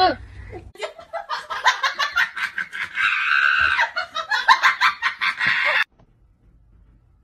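A person laughing in quick, rapid bursts, cut off suddenly near the end.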